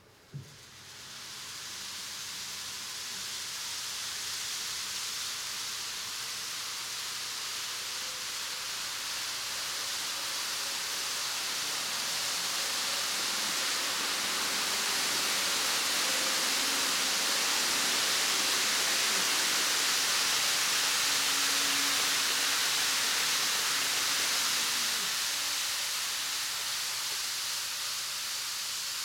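A model 500 Series Shinkansen train running through a model station, its wheels and motor making a steady hiss. The hiss builds from the start, is loudest as the train passes, and eases a little near the end.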